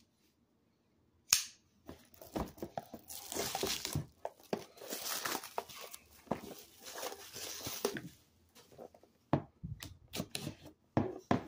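Plastic shrink wrap being torn and pulled off a trading card box: dense crinkling and crackling for several seconds, after a sharp click about a second in. A few knocks and clicks near the end as the box is handled.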